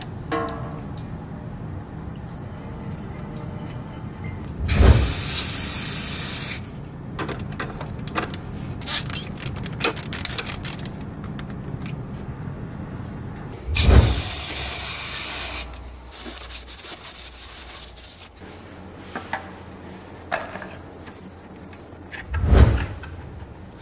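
Clicks of a socket and ratchet working the van's oil drain plug and oil filter housing. Three times, about five, fourteen and twenty-two seconds in, a loud rushing hiss starting with a low thump cuts across; the first two last about two seconds and the last is short.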